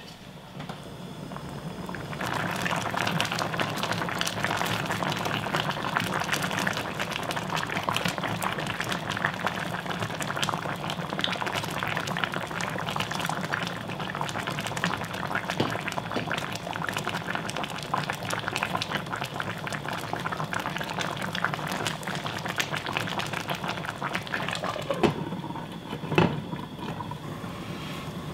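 Mackerel and radish braise in a spicy chili-paste broth boiling hard in a frying pan on a portable gas stove, a dense, steady bubbling and spluttering that builds up about two seconds in as the heat comes up. Near the end two sharp clinks as the glass lid goes on the pan.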